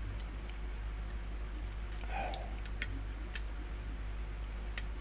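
Scattered light metallic clicks and ticks of a lock pick working the pins of a pin-tumbler challenge lock during single-pin picking, the sharpest click a little before the middle, over a steady low hum.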